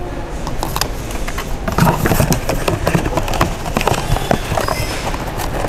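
Paper and cardboard packaging being handled: irregular rustling with many short clicks and knocks as a boxed set of Christmas baubles is taken from a shelf.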